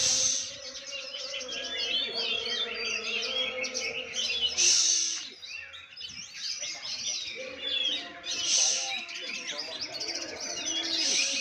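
Many oriental magpie-robins (kacer) singing at once: a dense overlap of quick, varied whistled phrases, with louder bursts every few seconds.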